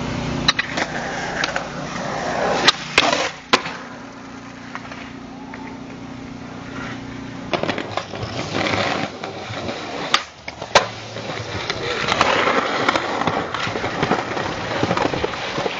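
Skateboard wheels rolling over concrete and pavement, with several sharp clacks of the board's tail popping and the board slapping down on landings.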